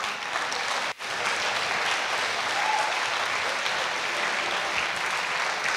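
Large audience clapping in a lecture hall, with a faint voice or two among it; the sound drops out briefly about a second in.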